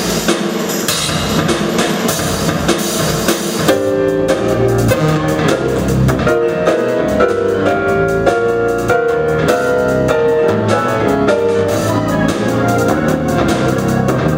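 Live electronic-leaning music: a fast, busy drum beat, joined about four seconds in by a melody of short stepped keyboard notes.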